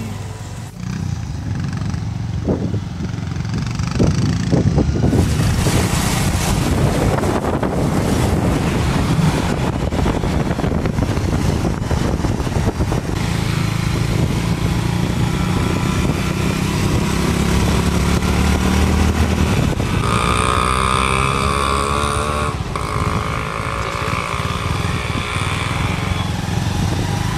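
Motorcycle engine running under way, with wind rushing over the microphone. A steady high tone joins for several seconds about three-quarters of the way through.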